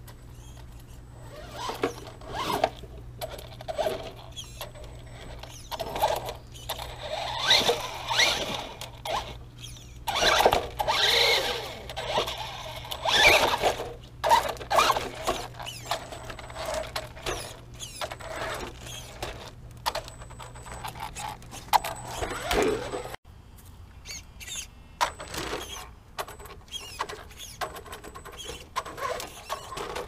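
Traxxas Stampede 4x4 VXL RC truck's brushless electric motor whining in repeated throttle bursts, rising and falling in pitch. Its tyres crunch over pebbles and rock, making many short clicks.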